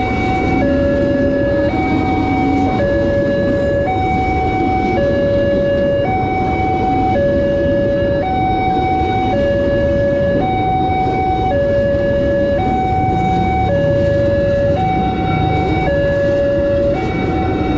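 Railway level-crossing alarm sounding a two-tone hi-lo signal, alternating between a lower and a higher tone about once a second, warning that the crossing is closed for a train. Under it is the low rumble of an electric commuter train passing over the crossing.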